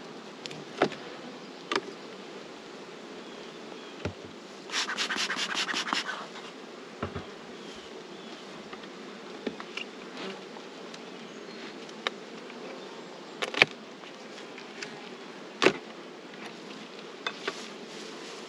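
Honeybees buzzing steadily over an opened hive, with scattered sharp knocks and clicks of a metal hive tool on the wooden boxes and frames. About five seconds in, a quick run of rasping clicks as the tool scrapes along the frame tops, and two louder knocks near the end.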